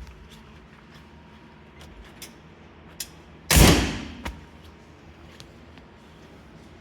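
A single loud thump about halfway through that dies away over about half a second, with a few light clicks before and after it.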